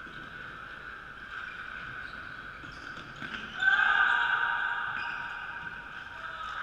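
Sounds of indoor play on a wooden sports-hall court: footfalls and thuds on the floor, with a loud sudden sound about three and a half seconds in that rings on and fades slowly in the echoing hall, over a steady high hum.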